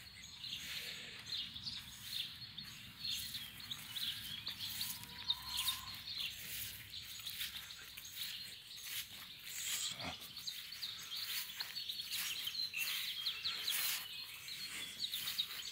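Small songbirds chirping and singing throughout, many short high calls overlapping, over a low outdoor background hiss.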